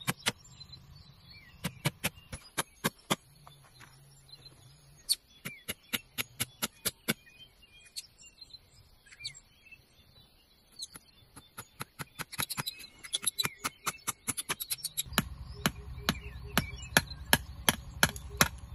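Small hammer tapping nails into bamboo slats: quick runs of sharp blows, about three or four a second, with a pause of a few seconds near the middle.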